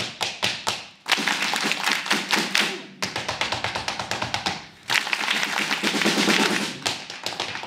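Tap shoes striking a small wooden tap board in fast rhythmic phrases of a second or two, with brief breaks between them, in a call and response where the audience claps the rhythm back.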